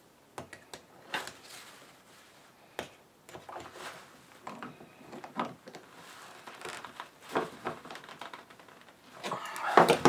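Small clicks and scrapes of pliers gripping and turning the freewheel body's lock nut hand-tight, with a paper towel held on the part. Near the end, a louder stretch of the paper towel rubbing over the part.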